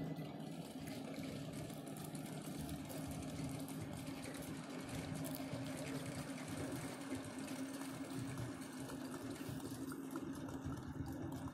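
Small ride-on 1.5-inch-scale diesel-outline model locomotive running steadily as it pulls a freight train, a constant motor hum with light clicking from the wheels and cars.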